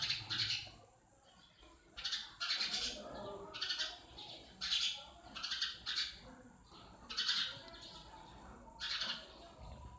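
House sparrows chirping, short chirps coming roughly once a second, about nine in all, over a faint steady high-pitched tone.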